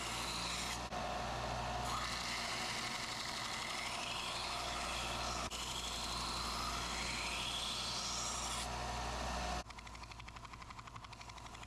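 Power sander running against a Damascus steel knife blade at coarse 80–100 grit, a steady grinding noise whose pitch slides upward at times. The sound changes abruptly a few times, and near the end it turns quieter with a fast, even rattle.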